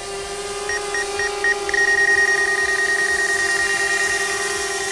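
DJI Mavic Air's propellers whining steadily in flight, with the DJI flight app's obstacle-warning beeps over it: a few quick high beeps about a second in, merging into one continuous high tone from about two seconds in as the drone closes on the tree.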